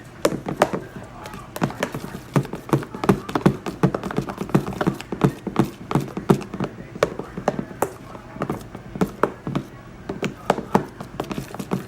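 Slime mixture of glue and shaving cream being stirred in a bowl: a run of quick, irregular taps and squelches, about three or four a second.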